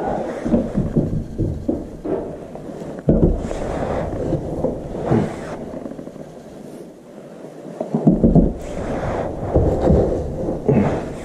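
Plastic scoop scraping and sifting granular cat litter in a plastic litter box, with the litter rattling and sliding as the box is tipped. A run of irregular scrapes, busiest about three seconds in and again over the last few seconds.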